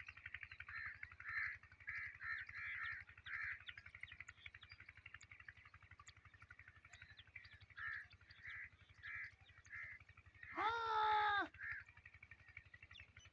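Birds calling in short repeated bursts, with one loud crow caw lasting about a second near the end, over a steady low hum.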